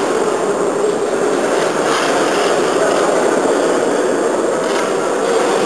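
Steady, loud background din of a sports hall, with no distinct voices or impacts standing out.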